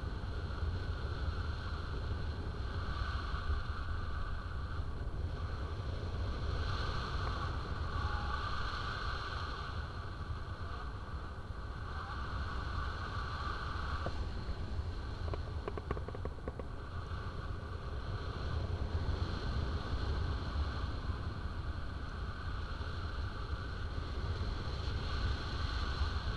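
Airflow buffeting the microphone in paraglider flight: a steady low rumble with a rushing hiss that swells and fades every few seconds.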